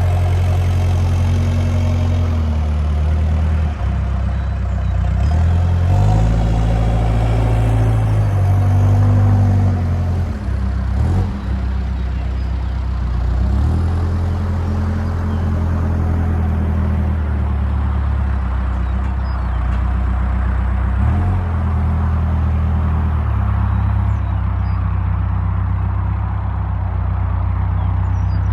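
2008 New Holland B95B backhoe loader's diesel engine running, its speed rising and falling several times.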